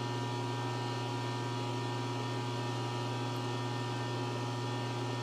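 Steady electrical hum from the powered-up Hurco VM1 CNC milling machine, idling with its servos still off: a strong low mains-frequency drone with fainter overtones and a thin high tone above it.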